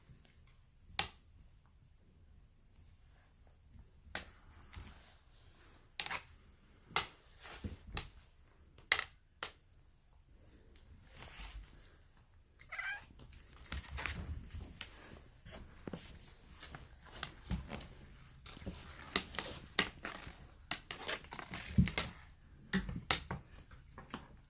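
Domestic cat making a brief meow about halfway through, amid scattered sharp clicks and knocks.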